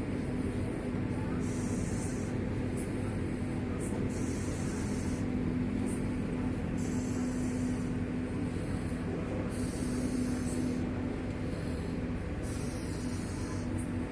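A person snoring, each breath a long hiss like a bus's air brakes releasing, repeating every one to three seconds over a steady low hum.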